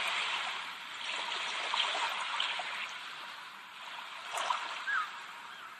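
Steady rush of flowing water, a stream-like nature-sound background, with a few faint short chirps.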